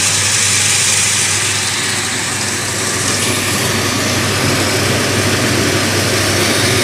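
Dried coffee bean hulling machine running steadily: a constant low motor hum under a dense, even rushing noise as the dried coffee cherries go through the huller.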